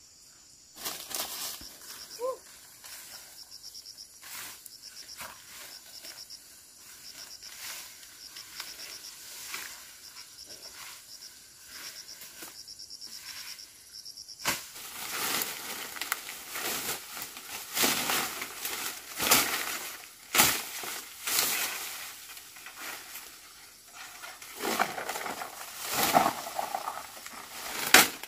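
Insects chirping in a steady pulsing rhythm with scattered light rustles; about halfway through, loud crunching and rustling of dry plant stalks and brush being trampled and broken, with many sharp cracks.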